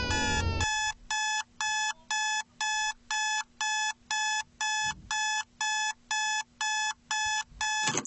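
Digital alarm clock beeping in a steady rhythm of about two short beeps a second, cutting off abruptly at the end. Before it starts, the tail of a loud falling, crying wail breaks off under a second in.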